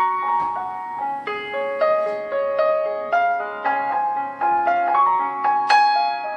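Background piano music: a gentle melody of single struck notes, each fading away, about two notes a second.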